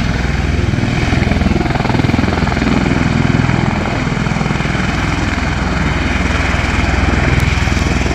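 Bell Boeing V-22 Osprey tiltrotor hovering in helicopter mode: its two big proprotors make a loud, rapid, steady beat over the rushing noise of its turbine engines.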